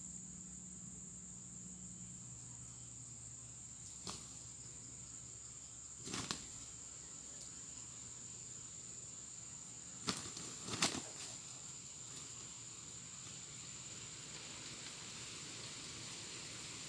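Steady high-pitched insect drone, broken by a few short, sharp clicks or knocks: one about four seconds in, one about six seconds in, and two close together, the loudest, around ten to eleven seconds in.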